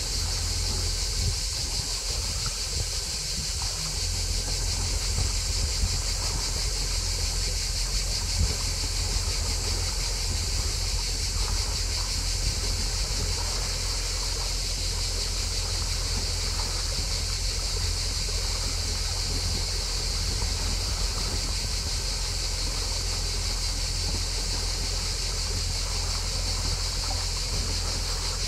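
Cicadas singing in one steady, unbroken high-pitched chorus, over the low, even hum of the canal boat's engine.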